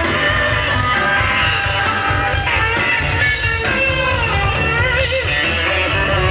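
Live rock band playing, led by an electric guitar whose notes bend and waver in the second half, over bass and drums.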